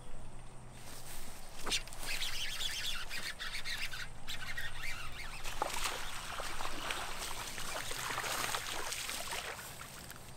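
A hooked bass splashing and thrashing in the pond water as it is fought in, a rough, spattering wash of water noise that goes on for several seconds and fades near the end.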